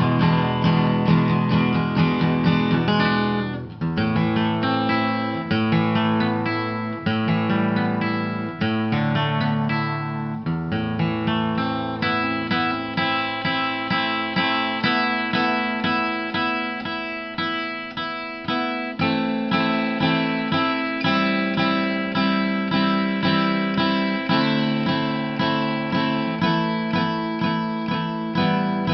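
Instrumental acoustic guitar music, picked and strummed notes in a steady flow.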